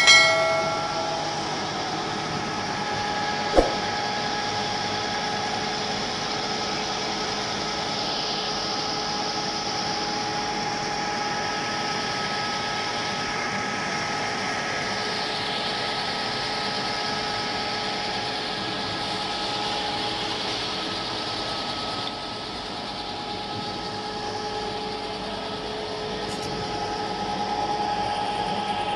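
Conventional engine lathe running and turning a metal shaft held between centres and driven by a faceplate and lathe dog, with the tool cutting: a steady mechanical whine with hiss. A sharp metallic strike that rings briefly opens the sound, and a short click comes about three and a half seconds in.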